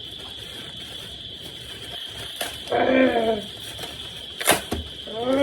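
Parcel packaging being opened by hand: faint rustling and handling, with one sharp click about four and a half seconds in. Short wordless voice sounds come about three seconds in and again at the end.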